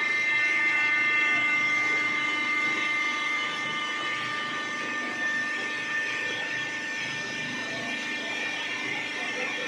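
Hydraulic baling press running: its electric motor and hydraulic pump give a steady whine over a mechanical hum.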